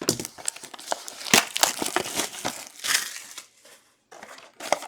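Foil trading-card pack wrappers and box packaging crinkling and tearing as a hobby box of football cards is opened, with a brief pause near the end.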